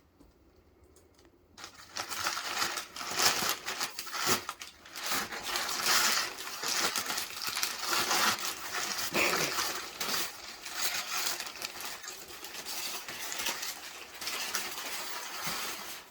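Packaging crinkling and rustling as a package is unwrapped by hand: dense crackling with many small clicks, starting about two seconds in.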